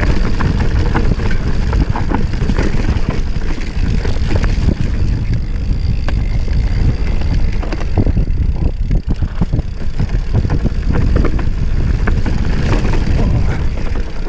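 Mountain bike rolling fast over a rocky dirt trail: tyres crunching on gravel and the bike rattling and knocking over bumps, with wind buffeting the camera's microphone as a steady low rumble.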